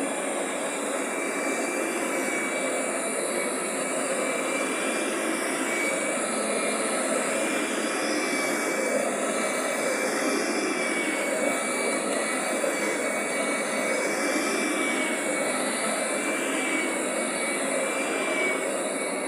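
Kirby vacuum cleaner running steadily, its motor giving a constant rushing noise with a thin high whine over it.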